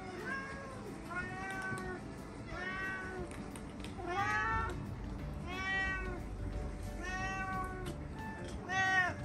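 Domestic cat meowing repeatedly, about seven meows one every second or so, the last one the loudest, as it begs for the snacks being hand-fed at the table.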